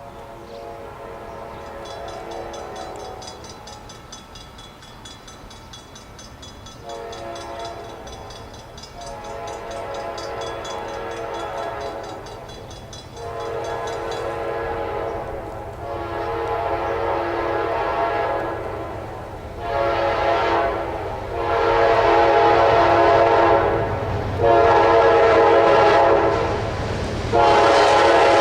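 Nathan K5LAR24 five-chime locomotive air horn blowing a long run of long and short blasts, each a rich multi-note chord, getting louder as the train approaches. Under it a low diesel rumble builds.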